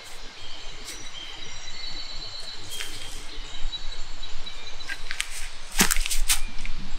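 Woodland ambience: a steady outdoor hush with faint bird chirps, broken by a few short, sharp crackles, the loudest cluster about six seconds in.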